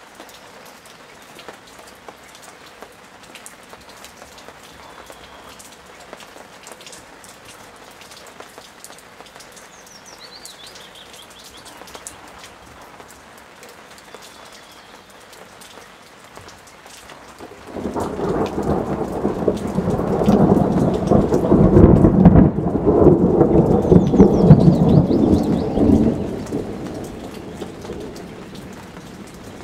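Steady rain falling, then about eighteen seconds in a loud roll of thunder sets in suddenly, rumbles for several seconds and fades away.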